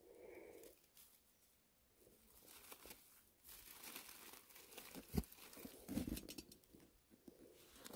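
Faint crinkling of dry leaf litter and scraping of loose forest soil as a gloved hand digs around a wild ginseng root, with two low thumps about five and six seconds in.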